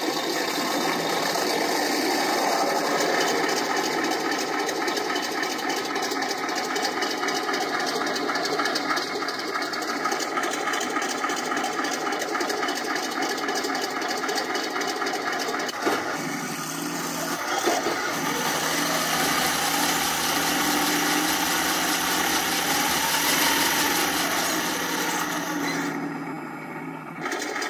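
Elmod Fusion sound board playing a KV-2 tank diesel cold-start sound through its loudspeaker and enclosure. The sound runs rough and rattling for about sixteen seconds, then after a click it settles into a steadier idle with one brief rev and a dip near the end.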